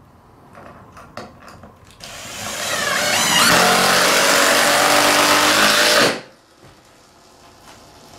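Cordless drill driving a screw into a timber floorboard: the motor starts about two seconds in, speeds up with a rising whine, runs steadily, then cuts off suddenly. Light clicks and handling noises come before it.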